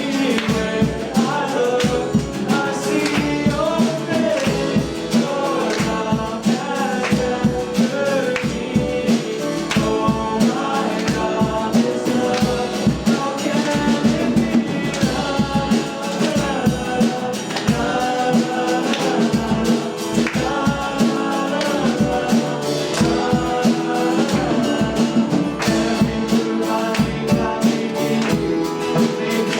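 Live church worship band playing a praise song with singing, and a steady drum beat throughout.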